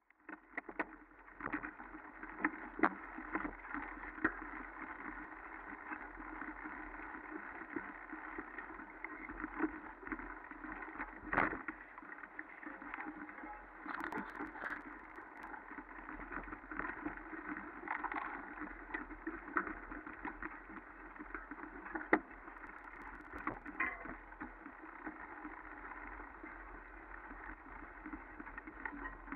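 Steady rushing noise with irregular knocks and clicks from a camera being moved quickly along a forest trail; the sharpest knocks come about a third and two thirds of the way through.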